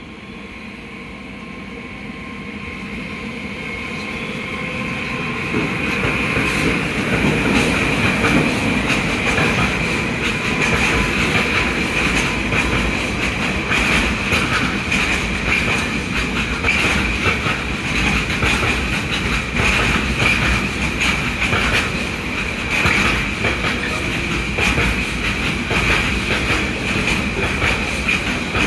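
Container freight train behind a DB Cargo class 189 electric locomotive rolling past. It grows louder over the first six seconds, then holds a steady clatter of wagon wheels over rail joints with a continuous high ringing whine from wheels on rail.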